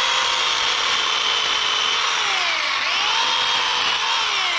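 Battery-powered chainsaw running with a steady high whine; its pitch sags and comes back up a little past halfway, then starts to sag again near the end.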